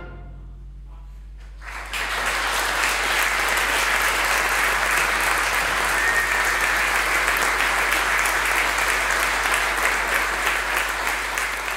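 The wind band's last chord dies away in the church's reverberation, then the audience breaks into steady applause about two seconds in.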